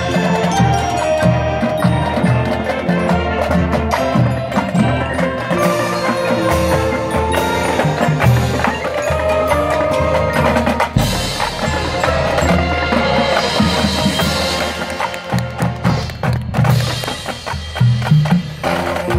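Marching band playing a field show: brass and saxophones over a drumline of snare and bass drums, with steady rhythmic drum strikes under held notes.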